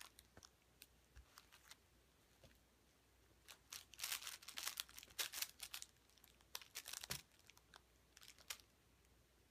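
A cat's claws and paws scratching and rustling a fabric cat play mat in short, scratchy bursts, busiest from about a third of the way in to just past the middle.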